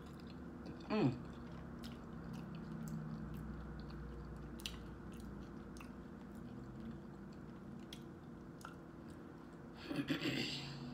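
Close-up mouth sounds of a person eating seafood boil by hand: wet chewing with small clicks, a short sucking sound falling in pitch about a second in, and a louder burst of slurping near the end. A steady low hum runs underneath.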